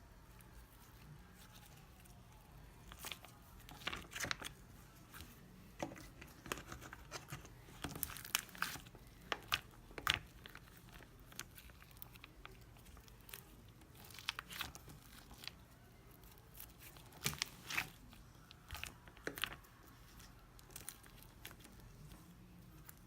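Slime being squished and stretched by hand, with irregular crackling pops of trapped air bubbles.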